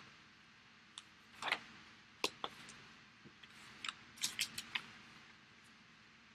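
Scattered small clicks and brief light scrapes of handling, with a quick run of clicks about four seconds in.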